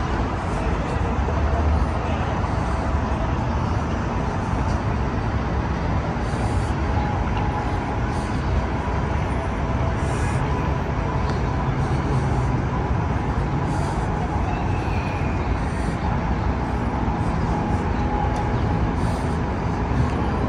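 Steady outdoor city background noise: a low rumble of traffic.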